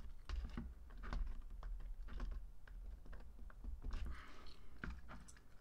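Irregular light taps and clicks of fingers and long fingernails pressing paper picture pieces onto a wall clock's face, with a soft paper rustle about four seconds in.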